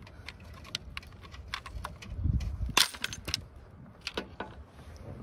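Small plastic clicks and rattles from twisting and handling the bulb sockets and wiring of a truck's third brake light housing, with a louder knock and a sharp click just under three seconds in.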